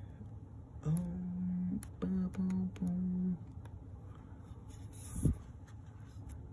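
A man humming four short, level notes, the first held about a second, then a single sharp tap about five seconds in.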